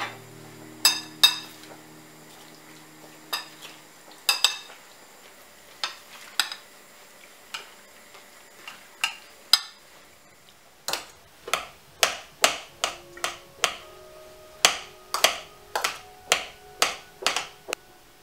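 A metal fork clinking against a glass bowl while stirring a mayonnaise-dressed salad. There are a few scattered taps, then, about eleven seconds in, a quicker run of clinks, roughly two a second.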